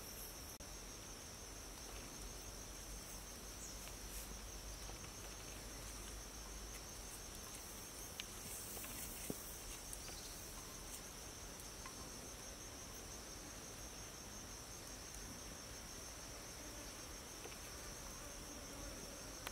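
Insects chirring steadily in a continuous high trill. A couple of faint clicks come about eight and nine seconds in.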